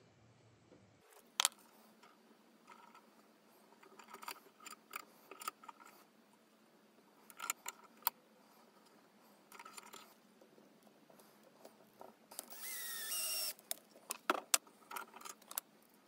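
Light clicks and taps of thin metal wire and a bench vise being handled by hand as the wire is bent, with one short squeal of about a second, about twelve seconds in, the loudest sound.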